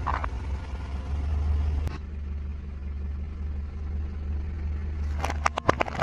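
A car engine idles with a low steady hum while the tyre crushes brittle plastic. A few sharp cracks come right at the start, from a plastic skull mask. A rapid cluster of sharp cracks and snaps comes about five seconds in, from a plastic rainbow spring toy.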